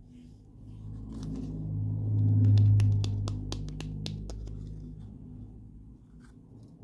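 Fingernails clicking and tapping on a small pink plastic toy tray as it is turned over in the hands, with a quick run of sharp clicks in the middle. Under them a low hum swells and fades.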